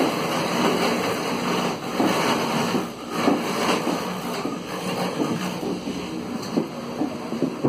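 Clog-copying machine running, its cutter carving a wooden blank into a clog by tracing a model clog, the way a key is duplicated: a steady mechanical whir with a low motor hum and a dense hiss of wood being cut.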